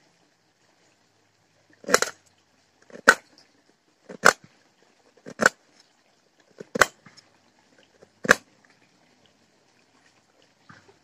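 A small knife striking down on stone as food is cut: six sharp knocks, about one every second and a bit.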